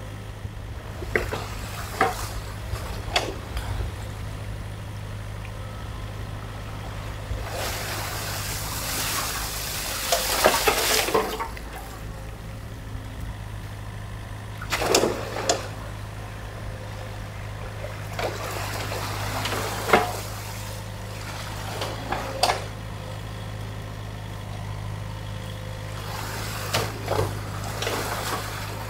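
Compact excavator's diesel engine running steadily while its bucket works through a beaver dam in a stream: a scattering of sharp knocks and splashes as the bucket hits wood and water, and a rush of water for a few seconds about a third of the way in.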